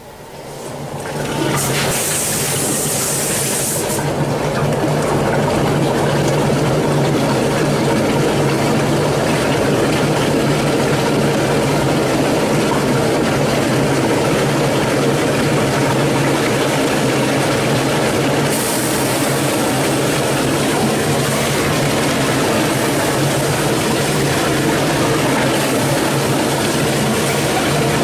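Electric drum mixer's motor and paddle running steadily, churning a batch of white cement, silica sand and fibre premix; the sound swells over the first second or two, then holds. A high hiss joins in briefly near the start and again from about two-thirds of the way through.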